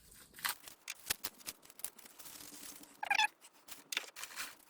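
Rustling and clicking as packaging and grinder parts are handled. About three seconds in comes a short cat meow, the loudest sound.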